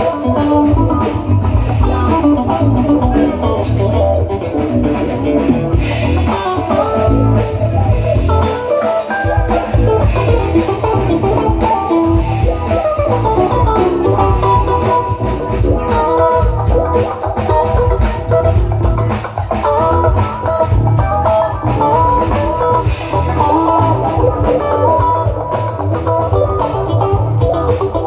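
Guitar and bass guitar playing together: a busy, quick melodic guitar line over a continuous bass line. The bass drops out for a moment about nine seconds in.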